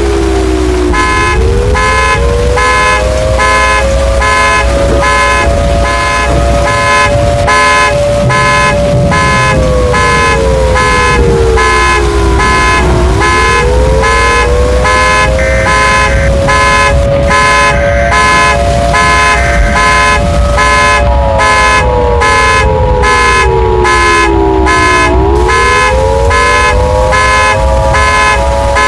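Outdoor tornado warning siren winding slowly up, holding, and winding back down about every twelve seconds. Over it, a car alarm honks in rapid, evenly repeated pulses from about a second in, set off by the siren, with a steadier alarm tone joining about twenty seconds in.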